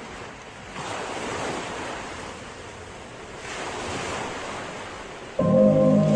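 Ocean surf washing in, rising and falling twice. Music with sustained notes starts suddenly near the end, louder than the surf.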